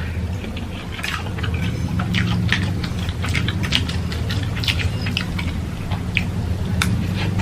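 Someone chewing and eating noodles: many short, irregular wet clicks and smacks of the mouth, over a steady low hum.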